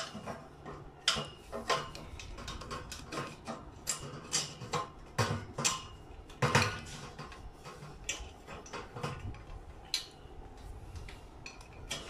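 Steel washers, nut and bolt clinking and knocking against the steel bed leg as they are handled and fitted, in irregular sharp clicks, the loudest knock about six and a half seconds in.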